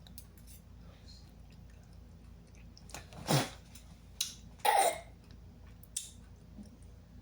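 A woman coughing twice, about three and a half and five seconds in, with a few small clicks around them: a reaction to the heat of a chili bitten in very spicy noodles.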